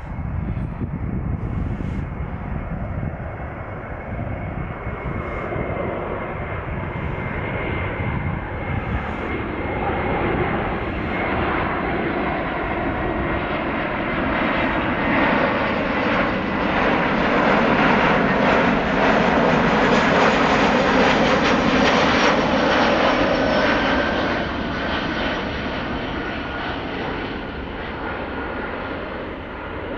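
Jet airliner climbing past overhead: its engine noise swells to a peak about two-thirds of the way through and then fades. A thin whine rides on top and is lower in pitch as the plane moves away.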